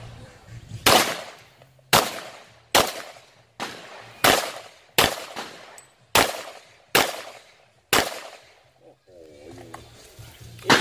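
Glock 41 Gen 4 pistol firing .45 ACP, about ten shots spaced roughly a second apart, each with a short echo. The shots pause for about two seconds near the end, where a voice is briefly heard.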